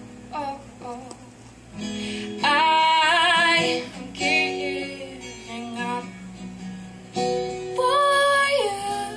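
A female voice singing a slow song over acoustic guitar, with two long held notes that waver with vibrato.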